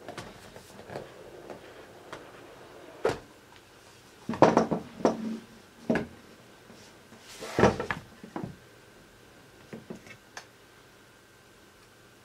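Cardboard iPhone box being opened and handled: a series of light knocks, taps and short scrapes of the card lid and base, with the loudest ones clustered near the middle.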